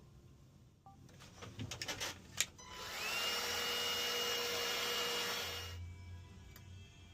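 A series of clicks and knocks, then a small motorised tool starts with a quickly rising whine, runs steadily for about three seconds and stops.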